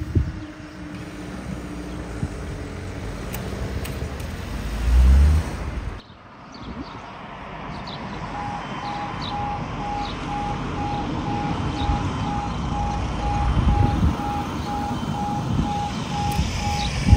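Road traffic passing over a level crossing, one vehicle going close by about five seconds in. From about eight seconds in, the crossing's audible warning alarm sounds: a steady beeping tone, about two beeps a second, signalling that the barriers are about to lower for a train.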